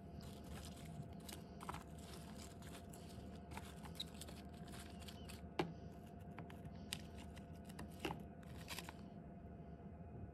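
A fork stirring and picking through Caesar salad in a plastic food container, with lettuce and croutons crackling and crunching. Two sharp clicks stand out, the louder about halfway through, over a faint steady hum.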